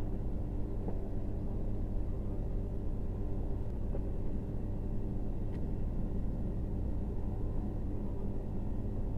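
Steady low machine-like hum, with a few faint clicks.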